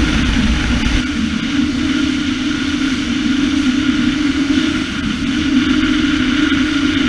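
Small open motorboat running at speed: a steady engine hum over the rush of wind and water. Wind buffets the microphone at first and eases about a second in.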